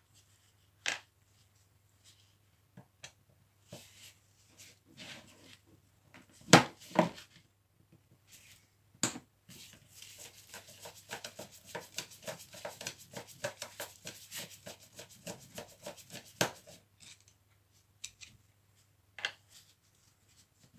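Hand work on a jigsaw's parts: scattered clicks and knocks of small metal and plastic pieces, the loudest two about six and a half and seven seconds in, then a fast, even run of ticks or scraping strokes lasting about six seconds.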